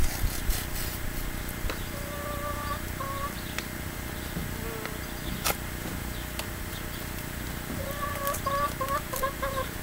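A chicken clucking: a few short calls about two seconds in, then a quicker run of short calls near the end. Faint clicks and rustles from hands working at the plant pots.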